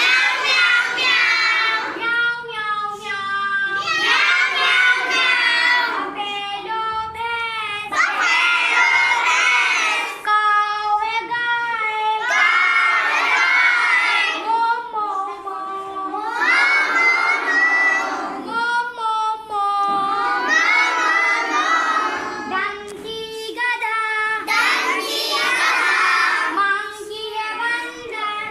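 High-pitched children's voices singing and shouting in short phrases, one after another.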